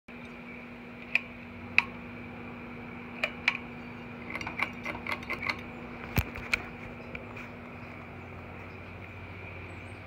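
52-inch ceiling fan running with a steady hum while its pull chain is worked: several sharp clicks, with a quick clattering run of them in the middle, from the pull-chain switch and the metal chain.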